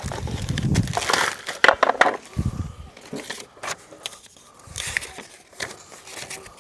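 Plastic storage trays and their packaging being handled: scattered clicks, knocks and rustling, with a dull thump or two near the start.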